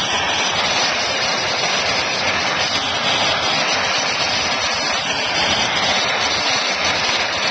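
Steady hissing rush of a gas torch flame heating the dented steel fuel tank of a Honda ATC 70.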